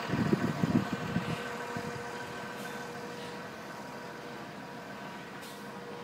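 Steady hum of an idling vehicle engine. Irregular low thumps and rumbling fill the first second or so.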